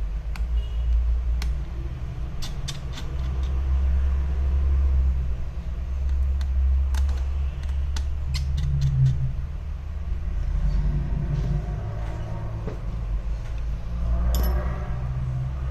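Scattered sharp, small clicks of a precision screwdriver working the tiny screws and metal connector shield plates inside an opened iPhone 11 Pro, over a steady low background rumble.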